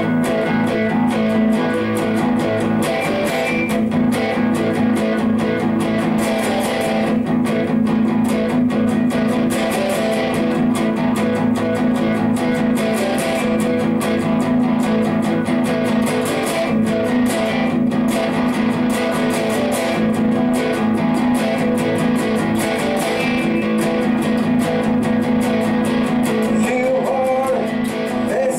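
Electric guitar playing a heavy-rock riff, strummed chords in a steady, driving rhythm. It starts abruptly and plays continuously, with a voice-like line just entering at the very end.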